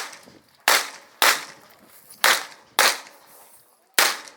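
Revolver fired rapidly in pairs: two quick pairs of shots about half a second apart, then a single shot near the end, each shot with a short echo.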